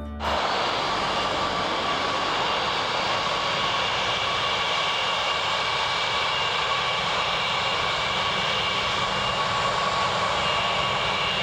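Jet engines of a British Airways Boeing 777 airliner running on the runway: a steady jet noise with a high whine held throughout, a higher whine growing stronger near the end.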